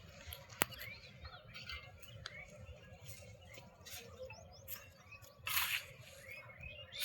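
Scattered faint small-bird chirps with light clicks, and a brief louder rustling hiss about five and a half seconds in.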